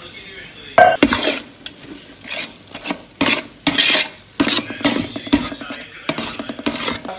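Thick masala paste of curd and lemon juice being stirred in a large aluminium pot, first with a steel spoon and then by hand: irregular wet stirring and scraping strokes, with a sharp knock against the pot about a second in.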